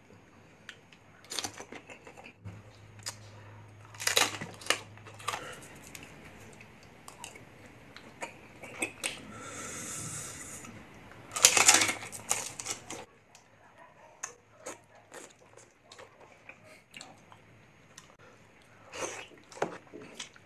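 Close-miked mukbang eating sounds: a string of sharp crunches, chews and wet mouth smacks from someone biting into food, loudest a little past the middle.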